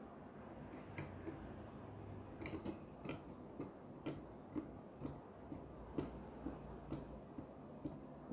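Chrome orbital kinetic desk sculpture spinning, its metal rings ticking lightly and evenly about twice a second after a quick cluster of sharper clicks as it is set going.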